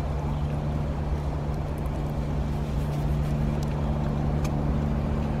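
A steady low hum and rushing noise, with a few sharp crackles from the wood fire burning in the barbecue pit.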